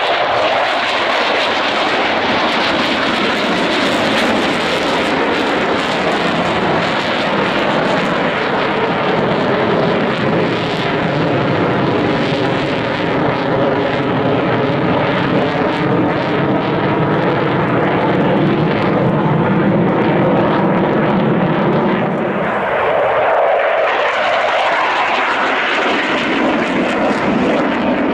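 Dassault Mirage 2000 jet fighter's SNECMA M53 turbofan engine roaring loudly as the jet flies past, with a shift in tone about three-quarters of the way through as it passes.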